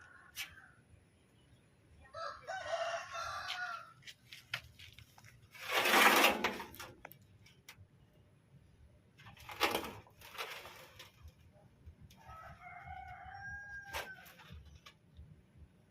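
A rooster crowing twice, once a couple of seconds in and again near the end, each crow lasting about a second and a half. Between the crows come two loud, noisy bursts: the louder one, lasting about a second, comes about six seconds in, and a shorter one comes near ten seconds. Scattered faint clicks sound over a low hum.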